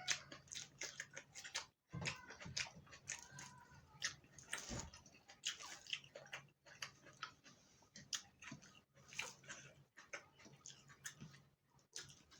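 Close-miked eating sounds: chewing with wet mouth clicks and smacks, coming irregularly several times a second.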